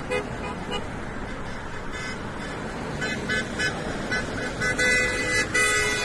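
Car horns honking: a string of short toots, then longer held honks near the end, over steady road traffic noise.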